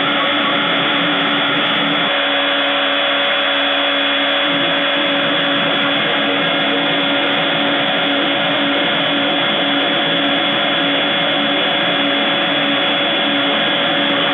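CNC milling machine's spindle running at high speed, a steady whine over a hiss, as a small end mill cuts a wooden workpiece held on a rotary axis.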